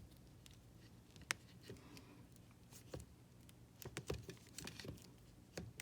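Faint scattered clicks and light handling noises of an Ethernet cable's wires and plastic connector being worked by hand, with one sharper click about a second in and a quick run of clicks near the end.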